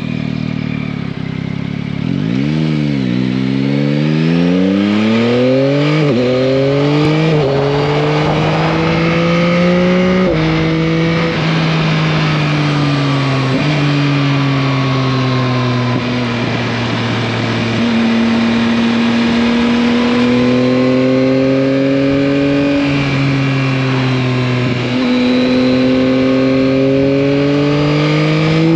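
2021 Yamaha MT-09's 890 cc three-cylinder engine pulling through several upshifts: the pitch climbs and drops back at each shift, four times in the first half. It then holds a fairly steady cruise with small throttle changes and climbs again near the end.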